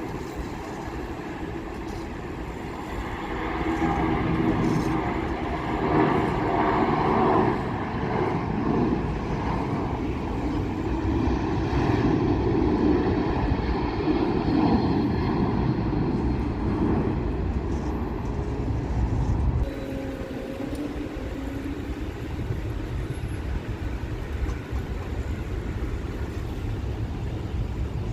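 Jet airliner engine noise, a steady rumble that swells a few seconds in and stays loud, then drops suddenly about twenty seconds in to a lower background rumble.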